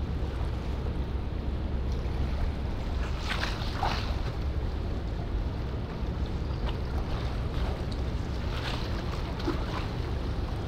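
Steady low rumble of a large bulk carrier passing close by, with the wash of water and wind buffeting the microphone. A few short, faint high sounds come through about three to four seconds in and again near the end.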